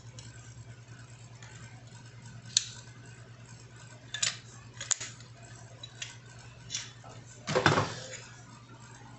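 Small metal parts of a disassembled DeWalt polisher being handled: a handful of separate sharp clicks and clinks, then a louder scraping clatter near the end, over a steady low hum.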